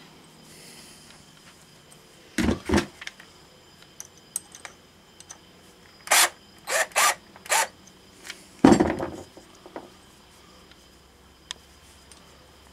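Sharp knocks and short scraping bursts as a pommel is worked onto a PVC sword handle at a workbench: two quick knocks, then four brief scrapes, then a heavier knock.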